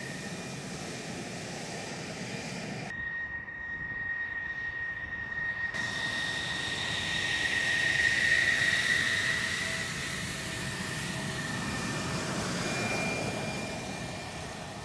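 Jet engine of a QF-16 (a converted F-16 fighter) running as the jet taxis past: a steady high whine over a rumble, swelling to its loudest about eight seconds in and then easing off as it moves away.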